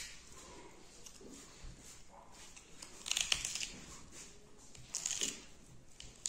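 Close-up eating sounds: two short bursts of crunching and tearing as beef is bitten and chewed, about three seconds in and again about five seconds in.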